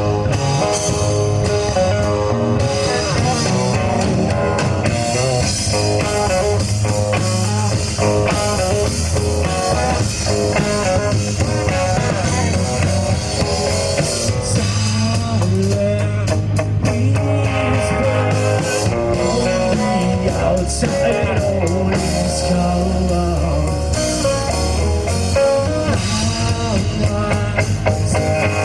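Live rock band playing an instrumental passage: electric guitar over bass and drum kit.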